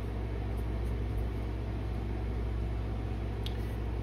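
A steady low hum and rumble with a light hiss over it, unchanging throughout, and one faint tick about three and a half seconds in.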